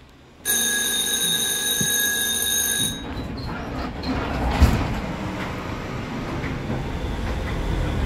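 A steady high tone with strong overtones sounds for about two and a half seconds and cuts off. Then the Gotha T57 tram's running noise rises, a low rumble of wheels and motors as it gets moving, with a single sharp knock about four and a half seconds in.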